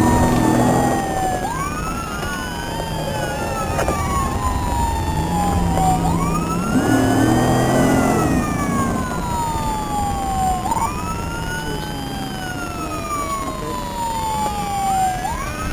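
Patrol car's electronic siren on wail, heard from inside the car: a quick rise then a long falling sweep, repeating about every four and a half seconds. The car's engine runs underneath and revs up about halfway through as it accelerates in pursuit.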